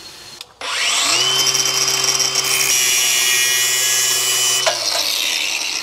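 Ryobi angle grinder spinning up about half a second in, then cutting into a thin steel patch panel for a sill rust repair, its pitch holding steady under load before it spins down near the end.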